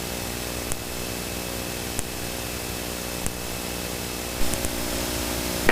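Steady cockpit noise of a Cessna Citation V in descent: airflow hiss over the steady hum of its twin turbofan engines, with a few faint ticks.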